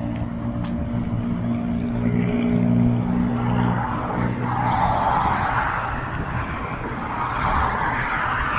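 Street traffic going by: a steady low engine hum for the first few seconds, then the loud rushing tyre noise of vehicles passing on the road from about four seconds in.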